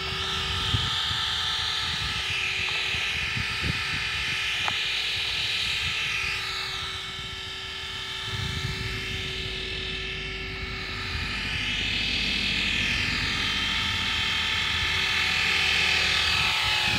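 Electric Devil X360 RC helicopter hovering low, its motor and main and tail rotors giving a steady whine. The pitch wavers up and down several times as it is flown.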